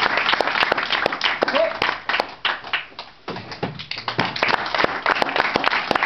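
A crowd clapping and applauding, mixed with a few voices. The clapping thins out about halfway through and picks up again a little later.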